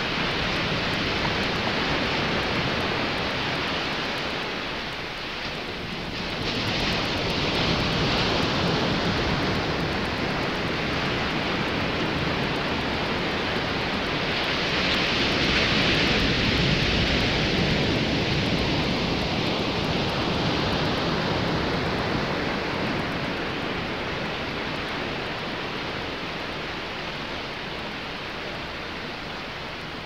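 A steady rushing noise that swells and eases slowly over several seconds, like surf or rushing water.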